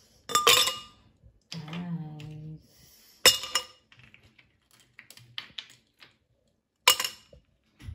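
Ice cubes dropped into a tall drinking glass: three sharp, ringing glass clinks about three seconds apart, with lighter clicks of ice settling in between.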